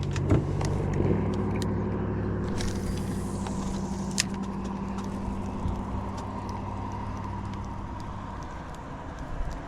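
A steady low motor hum that fades toward the end, with scattered sharp clicks and knocks, one louder click about four seconds in.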